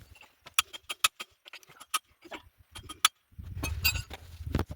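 Irregular sharp metal clicks and clinks of hand tools and parts being handled while working on an engine. A low rumble joins them for the last second or so.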